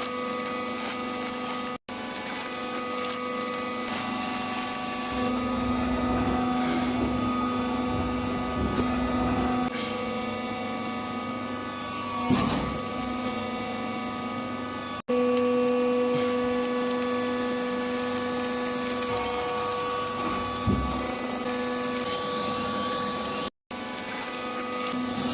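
Wood shaving baling machine running: a steady motor hum that shifts in strength a few times, with an occasional sharp knock.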